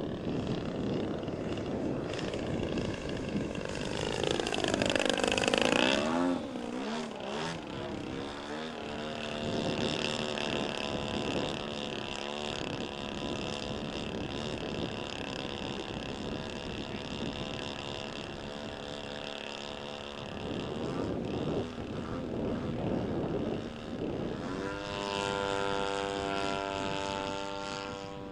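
Radio-controlled MXS aerobatic model airplane flying, its motor and propeller note rising and falling with throttle. The pitch dips and rises as it makes its loudest pass about five seconds in, and the note climbs steadily again near the end.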